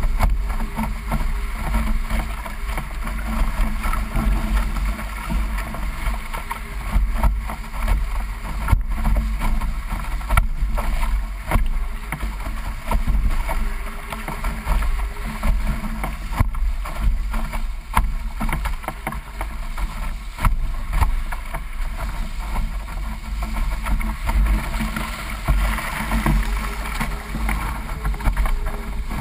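Wind buffeting the microphone over water rushing along the hull of a D-One sailing dinghy under way, with scattered sharp knocks of the bow meeting waves.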